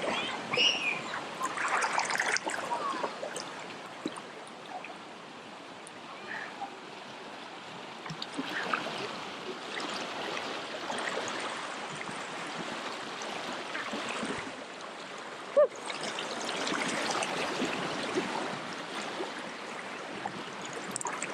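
Waterfall and stream water rushing steadily, with splashing in the first few seconds and a single sharp knock about two-thirds of the way through.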